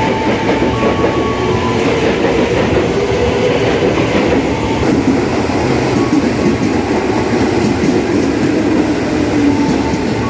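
KRL electric commuter train running along the platform, a loud, steady noise of wheels on the rails with a few faint high tones over it.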